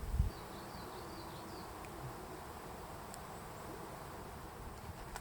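Quiet forest background with a short low thump at the start, then a faint, high, wavering twitter lasting just over a second.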